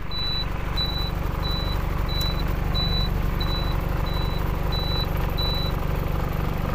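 Tata truck's diesel engine idling with a steady low rumble, heard from inside the cab. A high-pitched warning beeper sounds nine short, evenly spaced beeps, about one and a half a second, then stops.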